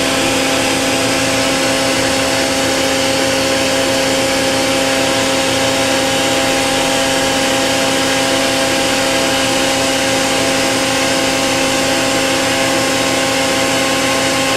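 Okuma & Howa Millac 630H CNC horizontal machining center running steadily, a constant mechanical hum with a steady whine that holds the same pitch.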